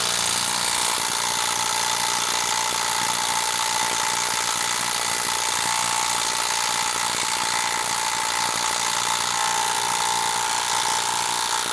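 DeWalt 12V Xtreme brushless impact driver hammering steadily as it slowly drives a 4-inch lag screw into a hardwood log round under heavy load.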